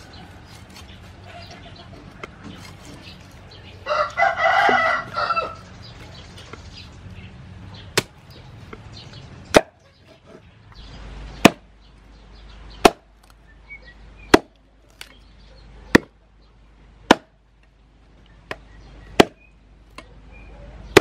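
A rooster crows once, about four seconds in. From about eight seconds a meat cleaver chops through raw pork ribs on a wooden chopping board: about a dozen sharp, loud strikes, roughly one every second or so.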